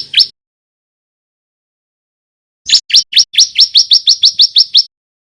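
Male bar-winged prinia (ciblek) singing: the last couple of notes of a phrase right at the start, then after a two-second pause a rapid volley of about fourteen sharp upswept chirps, quickening to about seven a second, that stops suddenly.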